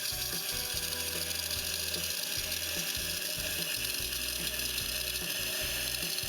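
ECM Classika PID espresso machine's pump running while steam and water spit steadily from the open steam wand: the single boiler being flushed and refilled from the reservoir to drop from steaming temperature back to brewing temperature. A steady hiss over a low pump hum.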